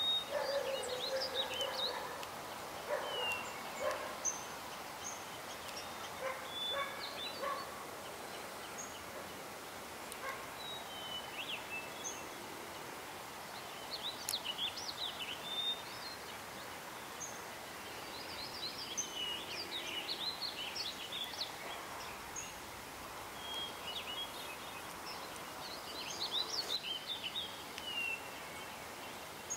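Birds chirping and trilling on and off over steady outdoor background noise.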